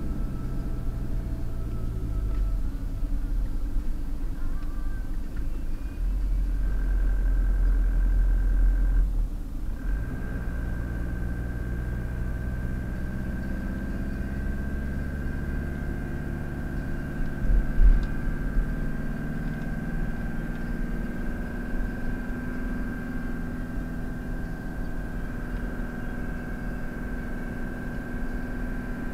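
Car cruising at motorway speed, heard from inside the cabin: a steady low rumble of engine and tyres with a thin, steady high whine over it. The rumble swells for a few seconds about a quarter of the way in, and there is a short thump near the middle.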